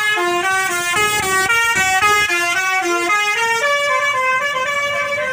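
A bus's musical 'telolet' air horn playing a quick tune of stepping notes, then settling into a longer held note about three and a half seconds in.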